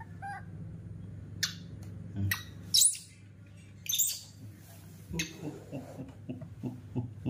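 Baby monkey giving two shrill, high-pitched screams a little over a second apart, about three and four seconds in, a tantrum as it demands its milk bottle. Soft clicks and knocks follow in the second half.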